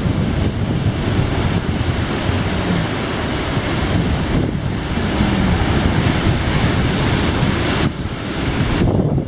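Ocean surf washing onto a beach, with wind buffeting the microphone; the sound changes abruptly and dips briefly about eight seconds in.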